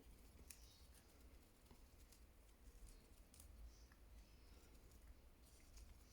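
Near silence with faint, irregular soft clicks from a cat close to the microphone.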